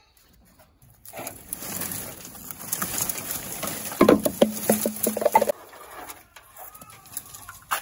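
Dry branches and twigs rustling, scraping and cracking as a tangled bundle is dragged out of a car's seats and boot. About four seconds in, loud cracks come together with a low pitched, pulsing sound for about a second and a half.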